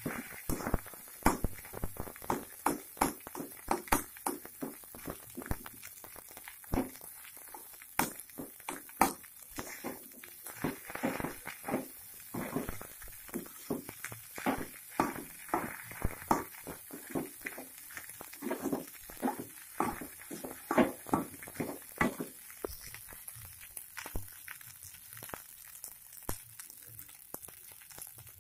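Metal spatula scraping and knocking against a black wok as fried rice is stirred and tossed, with irregular strokes a few times a second that thin out over the last several seconds.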